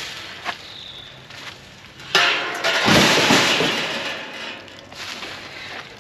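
Metal shipping-crate frame clattering as it is set down against a stack of other crate panels: a few light knocks, then a sudden loud crash about two seconds in that rattles on and dies away over the next two seconds.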